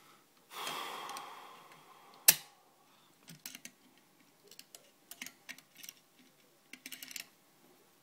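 A 2-in-1 lever pick working a 7-lever lock: a short scraping slide about half a second in, then one sharp metallic click about two seconds in, the loudest sound. Small light clicks follow in groups as the pick is turned and drawn out of the lock.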